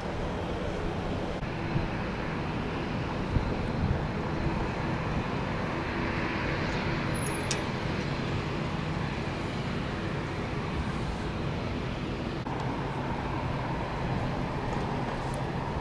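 Jet airliner engines running steadily as a continuous rushing noise, swelling slightly about midway. There is a single sharp click about seven seconds in.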